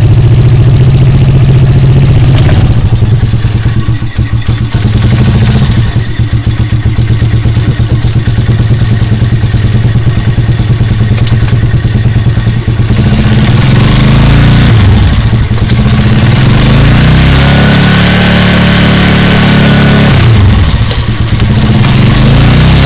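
Motorcycle engine running loudly close to the microphone, turning the rear wheel on its freshly shortened and tensioned chain. About halfway through, its speed rises and falls a couple of times.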